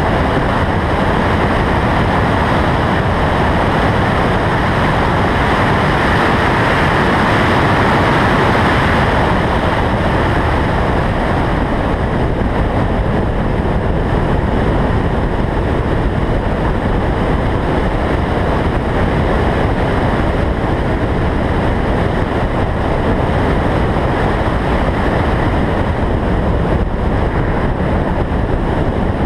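Wind rushing over a roof-mounted camera on a car at track speed, mixed with the car's driving noise. It grows louder from about six to nine seconds in, then eases a little.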